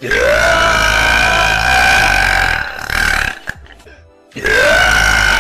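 Two long, loud burps from a girl, the second starting about four seconds in. Each rises in pitch at its start, then holds a steady tone.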